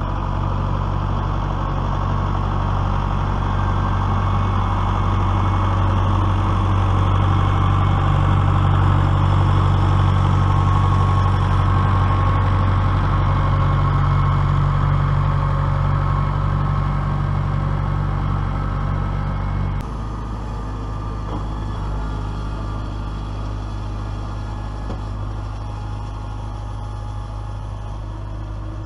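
Case IH MX100C tractor's diesel engine running steadily, pulling a Rain-Flo 2400 plastic mulch layer. About twenty seconds in the sound drops suddenly to a quieter, lower engine tone.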